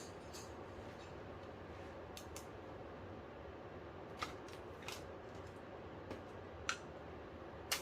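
Scattered light clicks and ticks, about eight in several seconds, from small parts being handled during TV disassembly, over a steady low hum.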